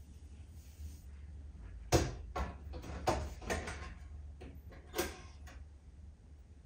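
Electric rice cooker being loaded and closed: the inner pot knocks into place and the lid and controls give a series of sharp clicks and knocks, the loudest about two seconds in.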